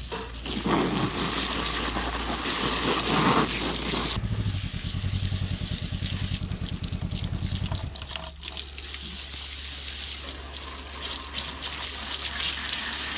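Garden-hose spray nozzle jetting water onto a mud-caked motorcycle's engine and front wheel: a rushing, splashing hiss that changes as the jet moves over metal and mud.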